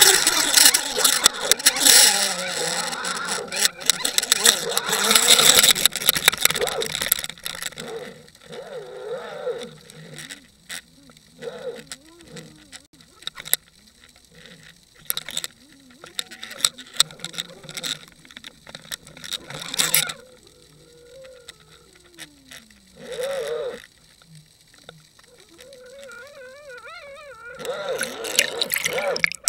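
Water noise heard through an underwater fishing camera's waterproof housing, dense and loud for the first several seconds as the camera is pulled through the water, then thinning out to scattered knocks and clicks. A few faint wavering tones come near the end.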